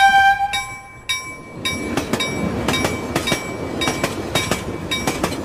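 A bell-like chime fades out in the first second. Then a train passes close by: a rumble with the rhythmic clickety-clack of wheels over rail joints, about three clacks a second.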